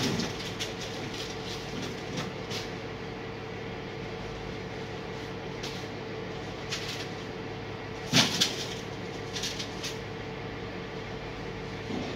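Engine of a self-loading tilt-bed truck running steadily, with scattered knocks and clanks; the loudest knock comes about eight seconds in.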